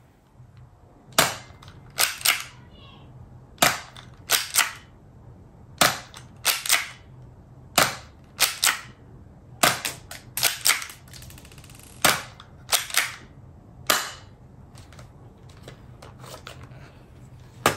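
Tokyo Marui AutoMag III airsoft pistol firing shot after shot at a target: about twenty sharp snaps over some thirteen seconds, many followed a third of a second later by a second click, stopping about fourteen seconds in.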